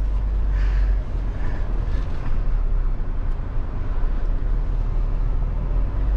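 Steady low rumble of a Mahindra Thar's turbocharged diesel engine and drivetrain, heard from inside the cabin as the 4x4 drives slowly over a dirt off-road track.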